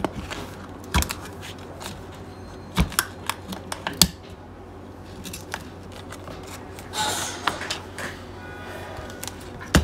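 Sharp clicks and snaps with some scraping as the glued display of a Samsung Galaxy Tab S6 (T865) tablet is pried away from its frame with a thin tool. The loudest clicks come about 1, 3 and 4 seconds in, and a short scraping comes about 7 seconds in.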